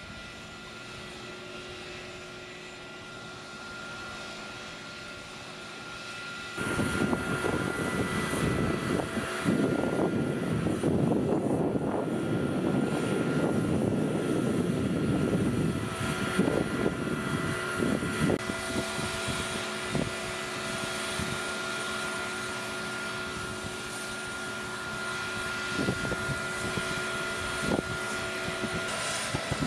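M1 Abrams tank's gas-turbine engine running with a steady high whine. About six seconds in, a loud rumbling noise starts suddenly and stays strong for about ten seconds, then eases, with a few scattered clicks near the end.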